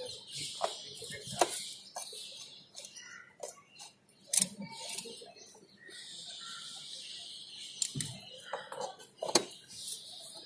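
Scattered light metallic clicks and taps of bolts and hand tools as a motorcycle chain cover is bolted on, with a stretch of faint hiss about two-thirds of the way in.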